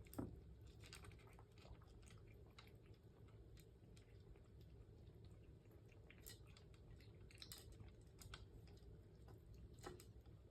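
A house cat eating its breakfast: faint, irregular small crunches and clicks of chewing.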